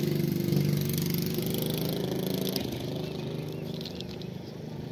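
A motor vehicle's engine running steadily, loudest at the start and fading away, as it moves off.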